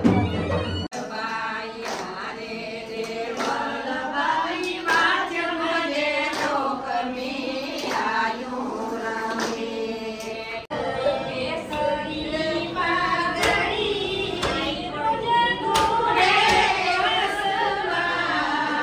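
A group of women singing a song together in unison, keeping time with hand claps. About a second in, a short stretch of instrumental music cuts off abruptly into the singing.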